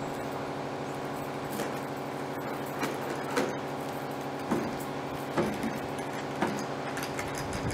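A small metal chain and metal clips clink and rattle in the hands a handful of times, irregularly, over a steady low hum.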